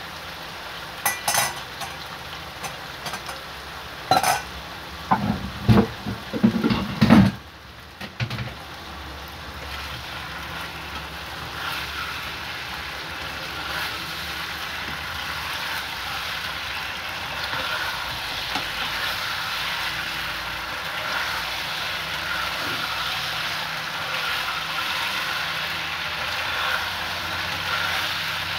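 Potato sticks frying in oil in a wok: a steady sizzle that builds gradually louder from about eight seconds in, with a plastic spatula stirring them. Several sharp knocks in the first seven seconds.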